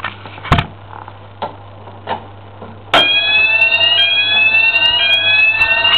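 A few handling clicks and knocks, then about halfway through a home fire alarm's electronic sounder is set off for a test: a loud rising sweep tone that repeats about once a second.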